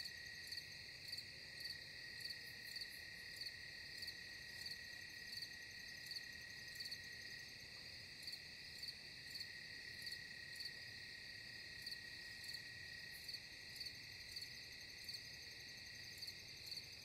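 Faint night insect chorus, crickets: a steady high trill with regular chirps pulsing a little under twice a second.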